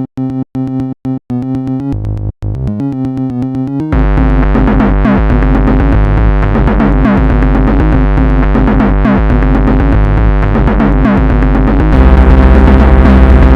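Electronic music: a synthesizer keyboard line plays alone, broken by short gaps, for about four seconds. Then bass and a denser backing come in. Near the end it steps up louder, with a brighter, noisier top.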